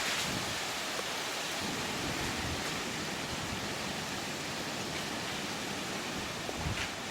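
Steady rushing noise of strong wind, an even hiss with no breaks.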